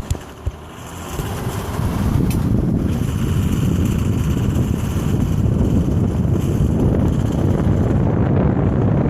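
Wind rushing over a microphone held outside a moving car, with the car's running and road noise, building up about a second in as it drives off; a few handling knocks on the microphone come first.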